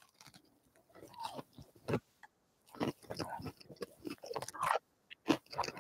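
Close-miked biting and chewing of KFC's Chizza, a breaded fried chicken fillet topped with cheese and pepperoni, done as ASMR. Irregular crunches from the breading and wet chews, with short pauses between.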